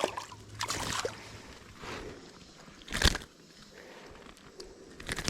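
Creek water splashing and sloshing in short bursts, with one sharp splash about three seconds in.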